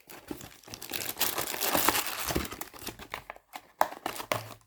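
Packaging crinkling and rustling in irregular crackles as an item is unwrapped by hand.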